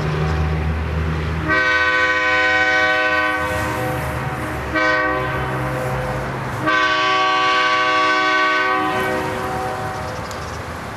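Diesel locomotive's air horn blowing a long blast, a short blast and another long blast, the end of the standard long-long-short-long grade-crossing signal. The engine rumbles steadily underneath and fades after the last blast.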